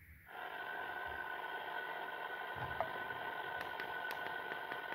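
Moonraker Micro CB radio's speaker hissing with open-squelch static, with a few faint steady tones in the hiss and some faint clicks near the end. The static starts about a third of a second in.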